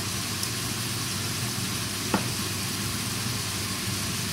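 Cubes of pork belly sizzling in a stainless steel pot, with one sharp pop of spattering fat about two seconds in. A steady low hum runs underneath.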